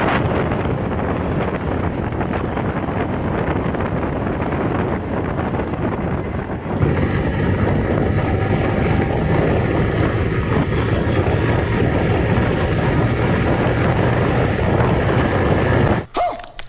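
Motorcycle riding at highway speed: wind rushing over the microphone with the Yamaha R15 V3's single-cylinder engine running steadily underneath in sixth gear. The sound cuts off abruptly near the end.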